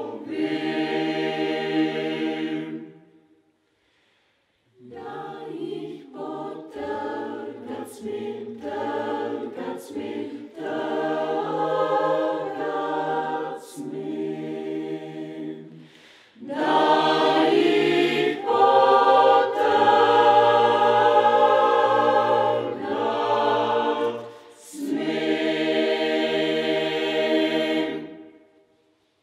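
Mixed choir of women's and men's voices singing a cappella: a held chord, a brief silence, a passage of shorter notes, then a louder full section and a final held chord that ends the song shortly before the end.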